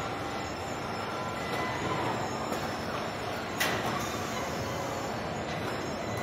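Steady machinery noise of a car body-shop line with industrial robots at work, and one short sharp sound about three and a half seconds in.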